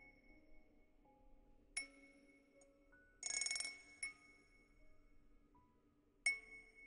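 Wind-chime cup ASMR trigger: three bright chime strikes about two seconds apart, each ringing on for a second or so, with a half-second burst of jingling between the first and second. Soft melodic notes sound underneath.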